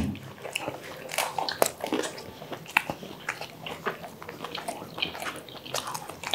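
Close-miked eating sounds: chewing a mouthful of pizza topped with fried chicken wing, with irregular wet mouth clicks and lip smacks several times a second.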